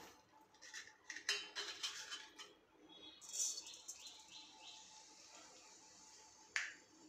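Seeds dropped into oil in an iron kadhai land with a quick run of clattering taps, then the oil sizzles with a steady hiss. A bird chirps about five times in quick succession in the middle, and a single sharp click comes near the end.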